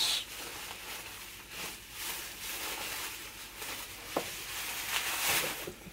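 Plastic bubble wrap rustling and crinkling as a gift is unwrapped by hand, in uneven swells, with a brief sharp sound about four seconds in.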